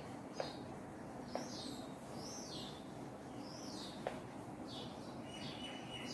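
Birds chirping, a repeated arched call about once a second, with a few faint sharp clicks. A thin steady high tone starts near the end.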